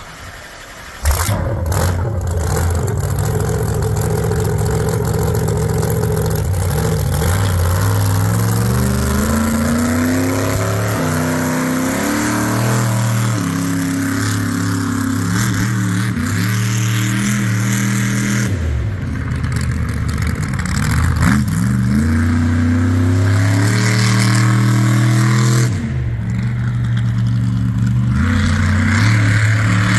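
The King Sling monster truck's 1500-horsepower engine comes in loud about a second in. It then revs up and drops back again and again as the truck is driven around the dirt course, its pitch rising and falling with each run of throttle.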